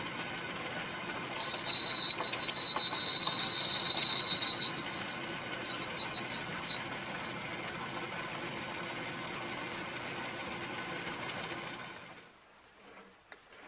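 Atlas 618 lathe running with a steady hum while a center drill cuts into the spinning end of the lead screw. The drill gives a loud, high squeal for about three seconds, then a couple of short chirps. The running sound cuts off near the end, leaving faint ticks.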